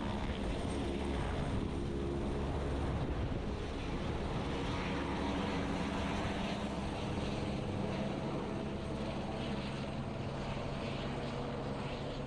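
Airbus H125 single-turbine helicopter flying with an underslung load, its turbine and rotor running steadily and slowly fading as it moves away.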